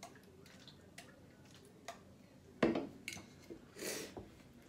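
Handling noise from a drink can being shaken and fiddled with in a failed try at opening it: small clicks, a sharp knock about two and a half seconds in, and a short scrape about a second later.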